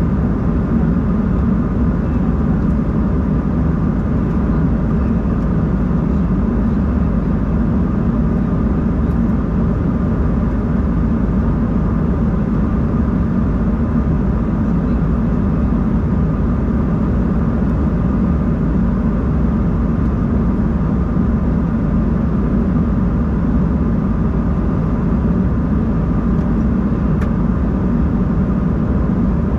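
Steady cabin noise inside an airborne Embraer 190-E2 airliner: the even rush of airflow and the hum of its Pratt & Whitney PW1900G geared turbofans, with a few faint whining tones and no change in pitch or level.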